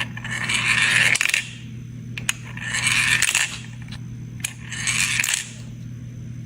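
Small hard pieces rattling and jingling like coins, in four shakes of about a second each, roughly two seconds apart, over a steady low hum.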